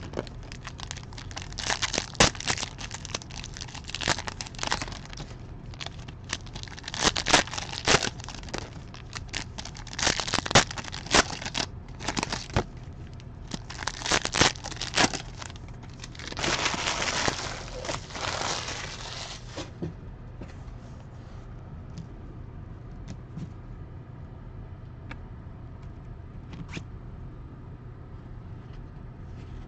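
Trading card packs torn open by hand: irregular crackles and rips of the wrappers for about twenty seconds, including one longer tear near the end of that stretch, then quieter card handling with a few faint ticks.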